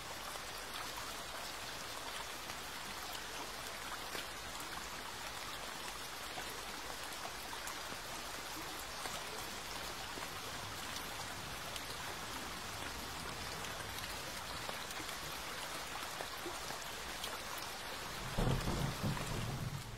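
Steady rain falling, an even hiss, with a low rumble of thunder near the end.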